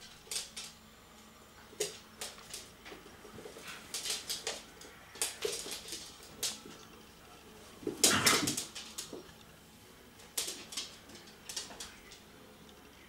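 Two small dogs scuffling over a dog bed: scattered clicks and scrapes of claws on a hard floor and in the bed, in short clusters, with the loudest burst of scuffling about eight seconds in.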